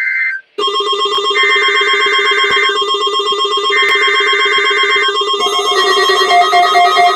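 Emergency Alert System data bursts on NOAA Weather Radio: three buzzy two-tone digital bursts about a second apart, the first cut off just after the start. They are laid over a steady electronic ringing alert tone that comes in about half a second in, and a pulsing higher beep joins about two-thirds of the way through.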